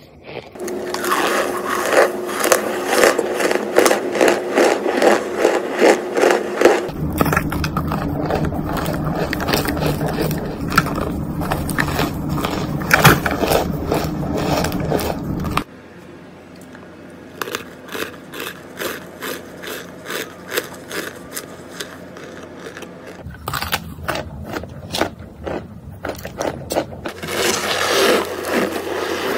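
Close-up crunching and squeaky chewing of compressed cornstarch chunks, rapid and continuous. It comes in several clips cut one after another, with a quieter stretch in the middle before it gets louder again near the end.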